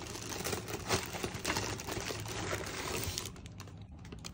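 Plastic wrapping crinkling and crackling as a wrapped head-unit screen is handled and lifted out of its cardboard box, dying down about three seconds in.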